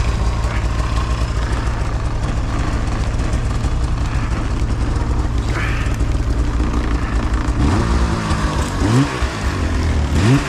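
Arctic Cat Alpha snowmobile engine running steadily under load, then revving up and down several times over the last few seconds.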